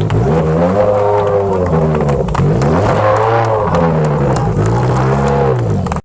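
Ferrari 360 rally car's V8 engine revving, its pitch swelling up and falling back three times in a row. The sound cuts off abruptly at the end.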